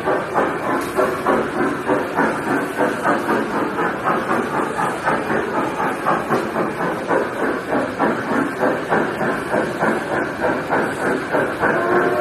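Kiddie ride train's loudspeaker playing a recorded steam-locomotive chuffing effect, a steady rhythm of about two to three chuffs a second as the ride moves.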